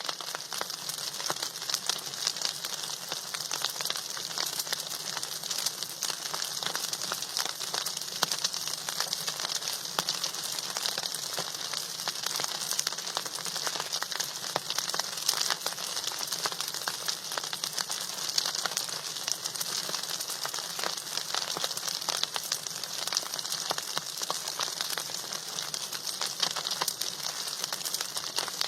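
Food sizzling and crackling steadily in hot oil in a pan.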